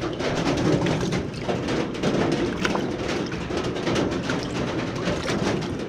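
Rain falling on a metal shed roof: a steady, dense clatter of many small drop impacts.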